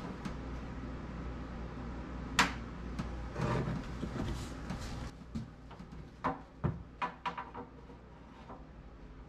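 Handling noise of tools and materials at a wooden door: one sharp knock about two seconds in, some scraping, then a quick run of lighter clicks and knocks.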